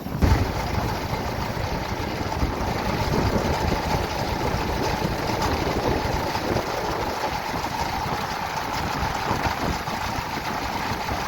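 Engines of vintage harvest machinery running steadily, with one sharp knock just after the start.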